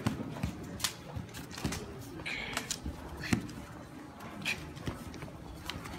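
Scattered sharp clicks and knocks from a two-person sword form, as practice swords strike and feet step on stone paving. The loudest knock comes about three seconds in.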